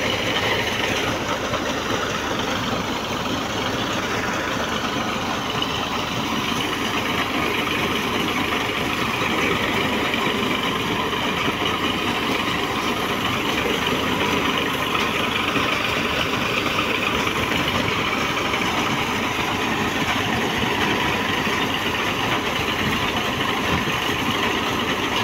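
Tubewell boring rig's engine running steadily, with muddy drilling water gushing from the rig's discharge pipe and splashing into a pit.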